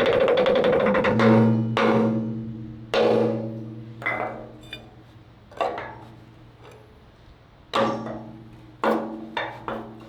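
Hammer blows on the steel armour of a tank turret's cupola, striking to free rust-seized periscope armour flaps. A quick flurry of strikes opens, then about nine single blows at irregular intervals, each leaving the steel ringing as it fades.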